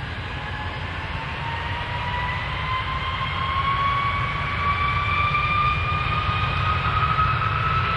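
An airplane's jet engines spooling up for takeoff: a deep rumble under a whine that rises slowly in pitch, with the sound growing gradually louder.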